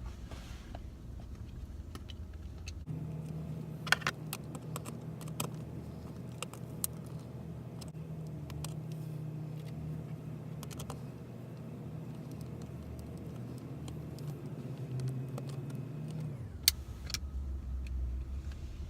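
Scattered sharp clicks and light knocks of small plastic console parts being handled, over a steady low hum.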